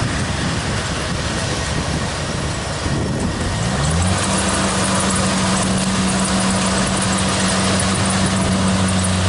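Kubota DC70 Plus combine harvester running with a dense, steady mechanical noise. About four seconds in, its diesel engine rises in pitch and then holds steady at a higher speed.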